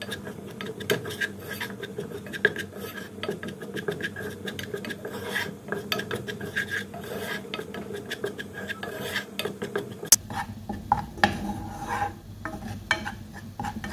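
A spoon scraping and stirring flour as it dry-roasts in a pan, a rapid rasping over a steady hum. The scraping eases about ten seconds in, leaving a few sharper knocks.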